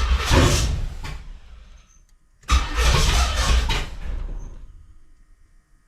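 Carbureted engine of a third-generation Camaro being cranked and briefly firing twice, each time running for a second or two and then dying away. It is struggling to start on a fuel system that has just been primed after sitting all winter.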